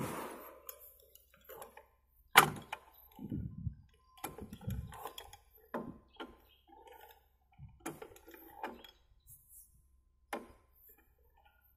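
Irregular knocks, thunks and light clicks, with a sharp knock about two and a half seconds in and a few dull thuds just after it.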